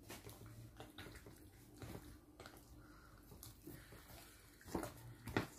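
Wooden spoon stirring tube pasta and white sauce in a glass bowl: faint, irregular wet squelches and scrapes, with two louder knocks near the end.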